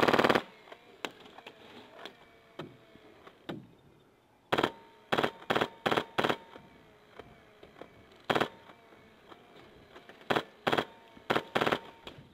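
Airsoft rifle firing short bursts of automatic fire, about ten bursts: one at the start, a quick cluster around five to six seconds in, one near eight seconds and four more near the end.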